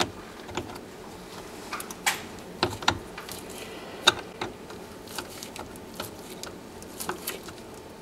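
A screwdriver tightening a hose clamp on a black hose at the garbage disposal: small irregular clicks and ticks of metal on metal, with a few sharper ones.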